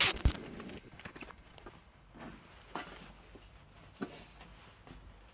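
Metal tools and parts being handled on a workbench: a sharp click right at the start, then a few faint, scattered clicks and knocks.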